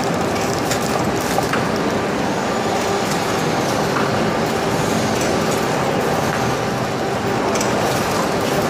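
Packaging machinery running steadily: a dense, even mechanical noise with a constant hum and faint, irregular ticks.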